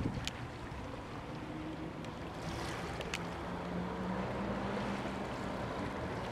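Small waves washing over a sandy river-mouth shore, a steady watery hiss, with a faint low engine hum through the middle and a couple of brief clicks.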